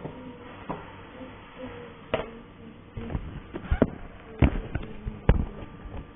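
Irregular taps and knocks, about seven in all, the loudest a little past the middle, over a steady hiss.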